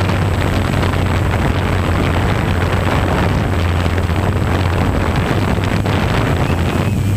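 Multirotor drone's electric motors and propellers running steadily in flight, picked up by the camera mounted on the drone, with a constant low hum and wind rushing over the microphone.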